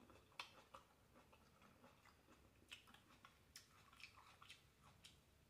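Faint chewing of fried food with the mouth closed: soft, irregular wet mouth clicks and smacks.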